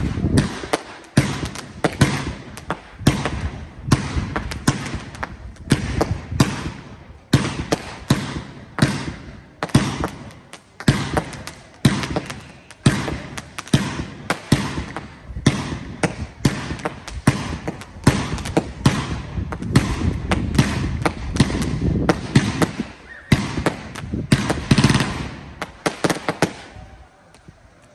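Aerial fireworks bursting overhead in a rapid, irregular run of bangs, about one to three a second, with a rumble between them, falling away near the end.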